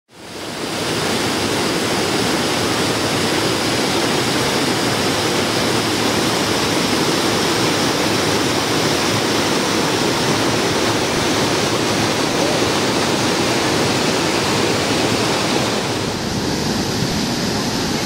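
Small river cascading over large boulders: a steady rush of white water that fades in over the first second, changing slightly in tone near the end.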